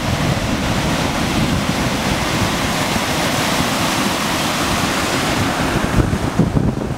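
Tidal bore on the River Nith: the breaking front of the incoming tide churns as foaming white water rushing along a stone quay wall, in a steady loud roar of surf.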